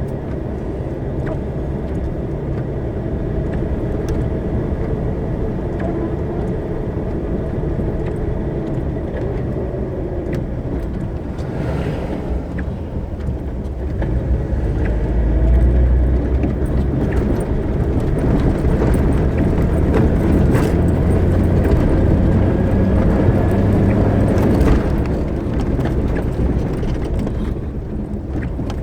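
Car driving, with a steady engine and road rumble that grows louder about halfway through for roughly ten seconds, then eases off.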